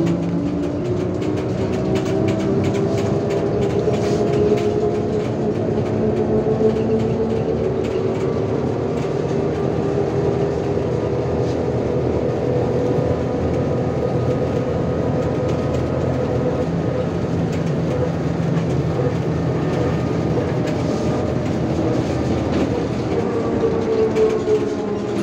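Trolleybus running, heard from inside the passenger cabin: the electric traction motor's whine rises in pitch over the first few seconds as it picks up speed, then holds fairly steady over a constant road rumble.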